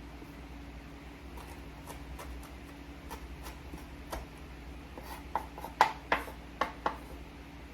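Kitchen knife chopping fresh oregano on a cutting board: scattered light taps, then a quicker run of about five sharper knocks in the last few seconds.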